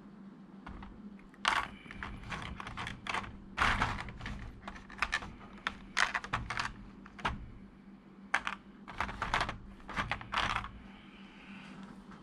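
Clear plastic blister tray clicking and crinkling as small figure parts are handled and picked out of it: a quick irregular run of sharp plastic clicks that starts about a second in and stops near the end.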